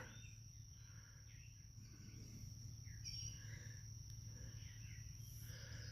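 Faint outdoor ambience: insects trilling steadily at one high pitch, with a few soft bird chirps around the middle.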